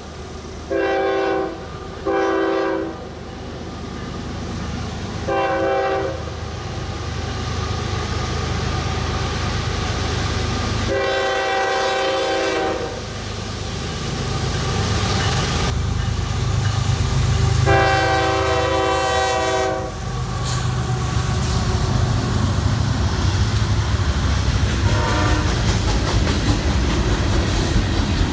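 Freight locomotive's multi-chime air horn sounding a series of blasts: two short, one more, then two long ones, and a faint short one near the end. Under the horn the rumble of the diesel locomotive and train rises steadily as it draws near and passes, with wheels clicking over the rail joints.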